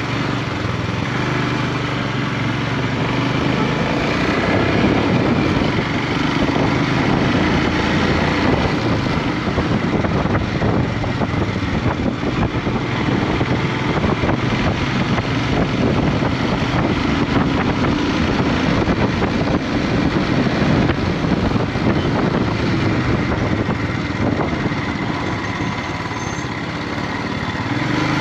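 Royal Enfield Himalayan single-cylinder motorcycle engine running steadily while being ridden, under a continuous rushing road and air noise.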